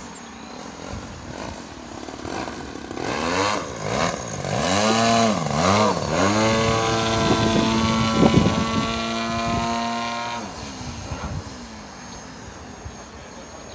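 The engine and propeller of a radio-controlled EDGE 540 aerobatic model plane. The throttle is pumped down and up several times, then held high and steady while the plane hangs nose-up in a hover, and drops back about ten seconds in. A few brief thumps come about eight seconds in.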